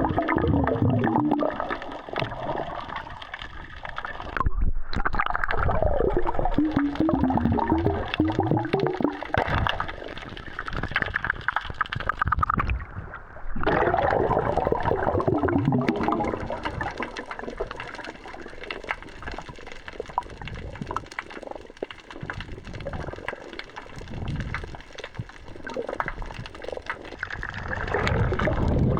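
Gurgling, churning water heard on a camera microphone that dips in and out of the sea while a spearfisher swims, with sloshing rising and falling and two brief cut-offs about a third and halfway through.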